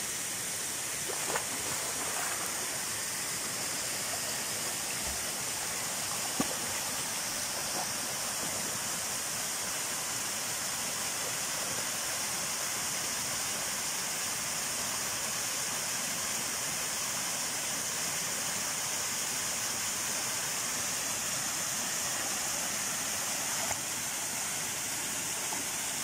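Small waterfall pouring into a rock pool: a steady, even rush of falling water, with one brief sharp sound about six seconds in.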